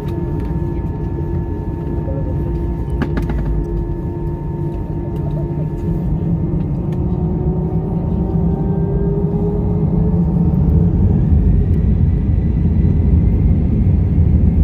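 Airbus A319's CFM56 jet engines heard inside the cabin: a steady low rumble with a whine that slowly rises in pitch and grows louder from about six seconds in as the engines spool up. A brief clicking rattle about three seconds in.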